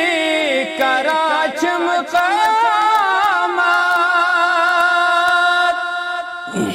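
A man sings a Kashmiri naat unaccompanied: a long, ornamented line that winds up and down in pitch, then settles into a held note that fades out near the end.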